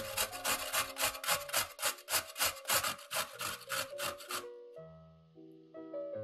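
A carrot being grated on a stainless-steel box grater, a quick rasping stroke about five times a second, stopping about four and a half seconds in. Piano music plays underneath.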